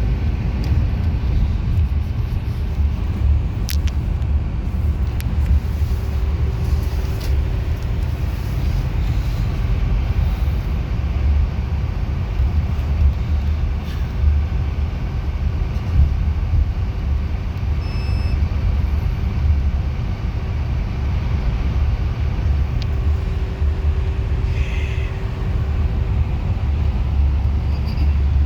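Steady low engine and road rumble of a moving bus heard from inside, with a faint steady hum and a short beep about two-thirds of the way through.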